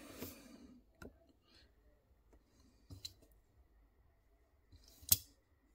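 A few light, sharp clicks and taps from handling small metal objects at a desk, the loudest about five seconds in, with a soft rustle of handling in the first second.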